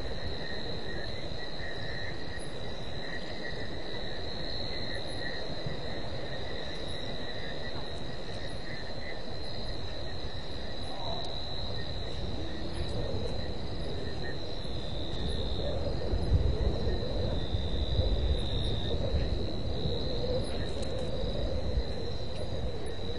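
Night insects, crickets among them, trilling steadily at a high pitch, with a fainter second trill lower down. Beneath them is a low rumbling noise that grows louder, with a few bumps, about two-thirds of the way through.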